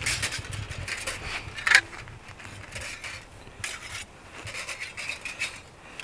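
Thin metal plates of a flat-pack hobo stove clinking and scraping against one another as they are handled and slid apart. There is one sharp metallic clack a little under two seconds in.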